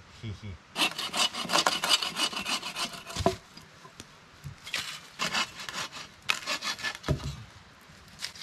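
Bow saw cutting through a log with quick back-and-forth strokes, in two runs with a pause of about a second and a half between them.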